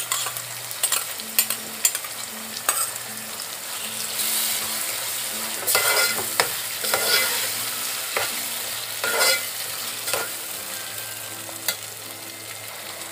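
Prawns and onions sizzling in oil in a metal pot as a steel spoon stirs in ground dried-mango paste, scraping the pot. Several sharp clinks of the spoon come in the first few seconds, and louder scraping swishes follow later.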